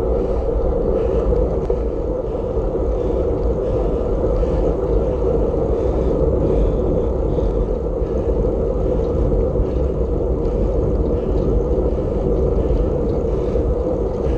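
Steady wind rumble on the microphone of a camera riding along on a bicycle.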